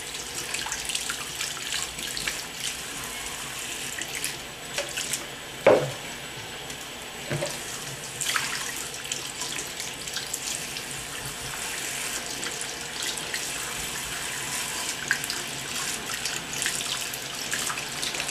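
Water running steadily from a faucet into a sink, drawn warm, with a sharp knock about six seconds in and a softer one shortly after.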